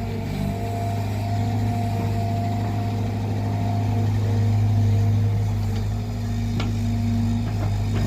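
Cat 320GC excavator's diesel engine running steadily with a steady whine over it, swelling a little about five seconds in, with a faint click about six and a half seconds in.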